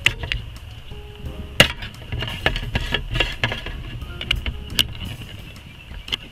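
Wood campfire crackling, with irregular sharp pops, the loudest about a second and a half in and near five seconds.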